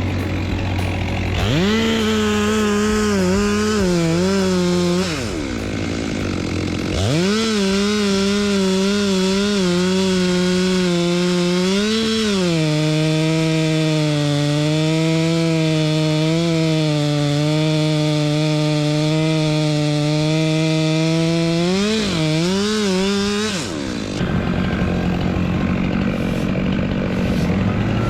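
Two-stroke chainsaw running at high revs, dropping out for a moment a few seconds in, then starting again and holding a slightly lower, steady pitch through a long cut before revving and stopping near the end. A lower, steady engine hum is heard underneath at the start and after the saw stops.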